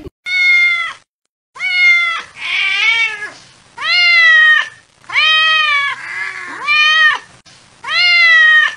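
Domestic cat meowing over and over: about eight loud meows, each rising and then falling in pitch, with short gaps between.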